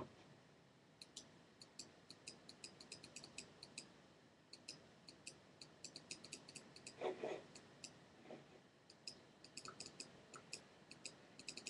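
Faint, quick light clicks at uneven spacing, several a second, over near silence, with one short soft rustle or breath about seven seconds in.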